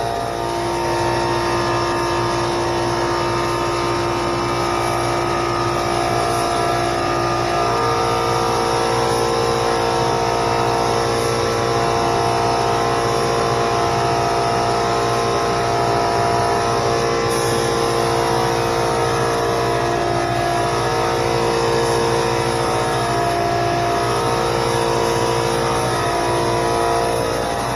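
Steady motor drone with a continuous air hiss from a spray-painting setup: a SprayIT R500 LVLP gravity-feed spray gun running off a small 21-gallon air compressor. The drone's pitch shifts slightly about half a second in and again about eight seconds in.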